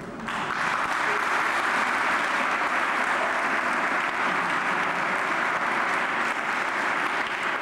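Audience applause, breaking out at once and going on steadily.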